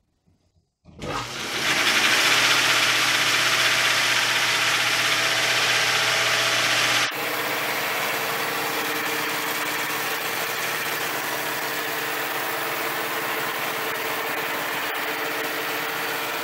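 Homemade wooden band saw mill running free: its electric motor starts about a second in and spins the blade around the two large wooden wheels, a steady whirring hiss over a low motor hum. It settles slightly quieter after about seven seconds.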